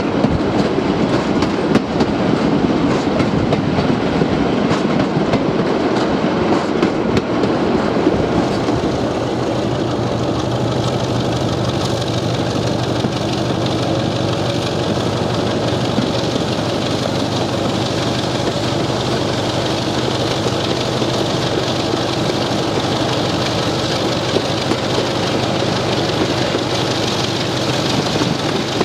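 BR Class 33 diesel locomotive under way, its Sulzer eight-cylinder diesel engine running with the wheels clattering over the rails. After about ten seconds the clatter eases and the engine's steady note comes through more plainly.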